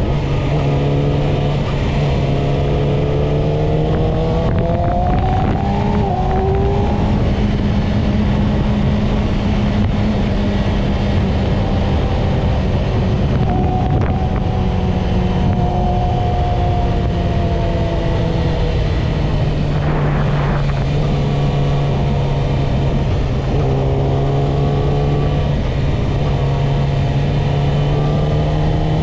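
Yamaha YZF-R6's inline-four engine running under way, climbing in pitch as it accelerates a second or so in, dropping briefly about six seconds in, then holding or easing off before climbing again near the end. A steady rushing noise runs underneath.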